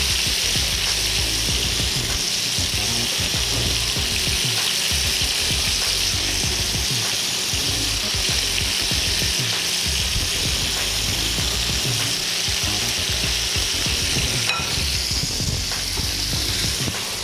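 Beef burger patties sizzling steadily in butter in a skillet.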